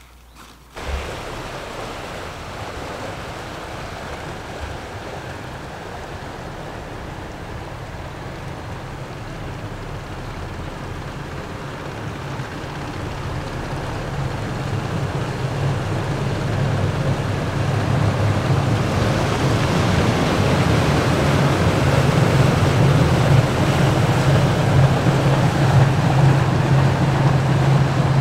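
A steady low hum under a rushing noise, growing slowly louder.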